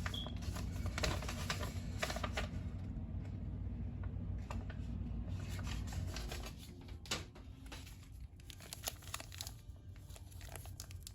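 Crinkling and tearing of packaging as Pokémon card packs are handled, a run of small sharp crackles, over a low hum that cuts out about six seconds in.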